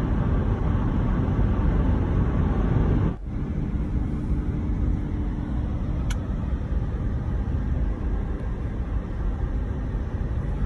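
Road and engine noise inside a moving car's cabin, a steady low rumble. It breaks off briefly about three seconds in and comes back with a faint steady hum, and there is a single short click near the middle.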